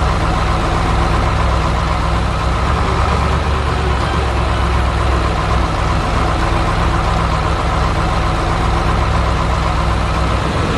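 Heavy truck engine running steadily, its pitch and level unchanging.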